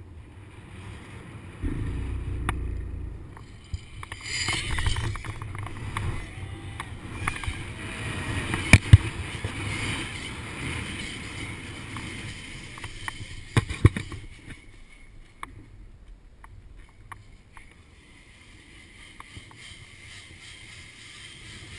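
Wind rushing over the microphone and a zipline trolley running along its cable during a ride. It starts about two seconds in and eases off in the second half, with scattered clicks and two sharp knocks in the middle.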